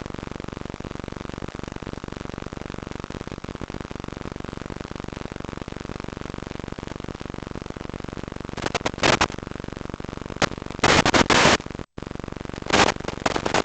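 Steady buzzing hum over an analog FPV radio link, broken in the second half by several loud bursts of hiss and a brief dropout as the 1.3 GHz video signal fails at range.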